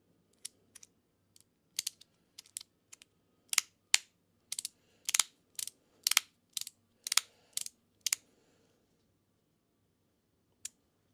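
Resin magnetic fidget slider being played with: the loose pieces slide and snap against each other in a run of sharp, irregular clicks, some in quick pairs, stopping a little after eight seconds with one more click near the end.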